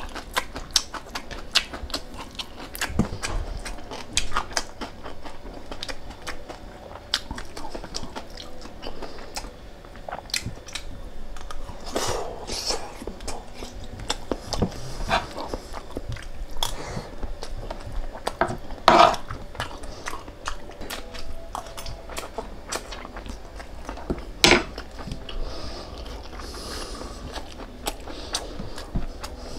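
A person chewing and biting food close to the microphone: a steady run of small crunches and mouth clicks, with a few louder crunches along the way.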